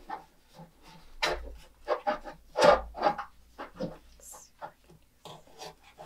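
Blue painter's tape being pulled from the roll and pressed and rubbed down over a white plastic dollhouse kitchen piece, with irregular knocks and rubs of handling; the loudest knocks come a little over a second in and near the middle.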